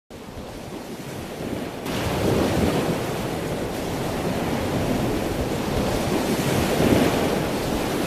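Ocean surf: a wave breaking all along its length at once in a closeout, with whitewater rushing in toward the shore. The rush gets louder and fuller about two seconds in.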